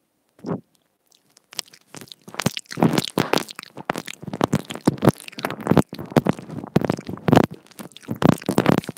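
Teeth nibbling and biting on the inline microphone of wired earbuds, heard right at the mic: after a single short bite, a dense, irregular run of crunchy clicks and thumps begins about two seconds in.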